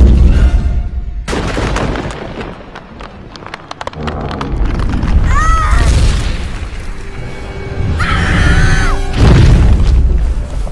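A cartoon T-rex's deep booms and rumbles under dramatic film music, with two shrill cries that rise and fall, about five and eight seconds in.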